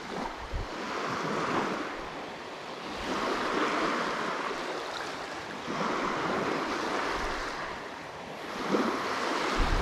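Sea waves washing in, the noise swelling and fading four times, about every two to three seconds.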